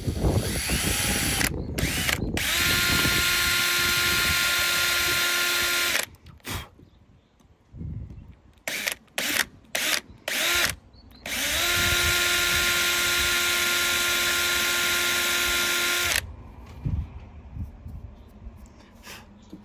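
Electric drill boring holes into a broken statue for steel reinforcing pins. It spins up and runs at a steady speed for a few seconds, gives several short trigger bursts, then runs steadily again for about four and a half seconds before stopping.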